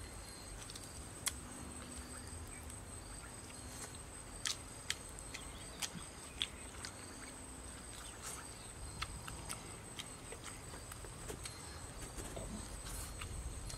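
Insects trilling on one steady high note, with scattered sharp clicks and snaps, about a dozen, most between four and seven seconds in.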